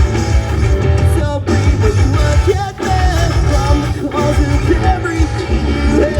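Live rock band playing loud: electric guitar lines over a heavy, steady bass and drum low end.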